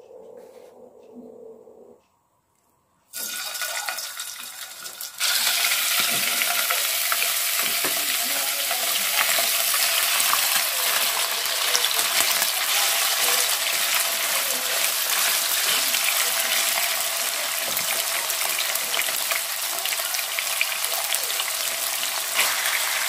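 Sliced pork frying in hot oil in a nonstick wok, a dense crackling sizzle that starts softly about three seconds in and turns loud about two seconds later. The pieces are stirred with a wooden spatula.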